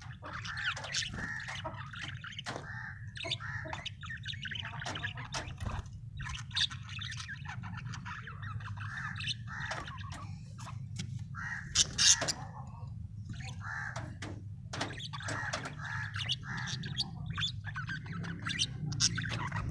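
Several parrots calling at once in a continuous chatter of short, harsh squawks, loudest about twelve seconds in, over a steady low rumble.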